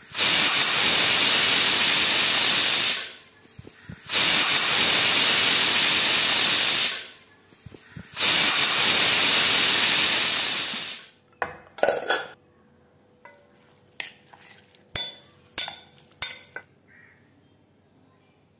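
Stovetop pressure cooker whistling: steam hisses loudly out of the weighted vent on the lid in three long blasts of about three seconds each. After them come a handful of short metal clinks.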